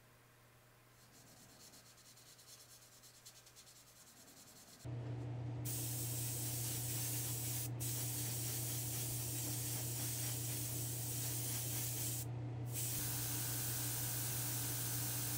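Airbrush spraying white sealer and paint onto a small diecast truck cab: a steady hiss of air and paint over a low steady hum, starting suddenly about five seconds in after a few seconds of faint rustling. The hiss breaks off briefly twice while the hum carries on.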